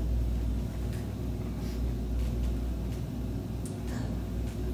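A steady low rumble, with a few faint soft knocks and short breathy hisses from dancers moving on stage.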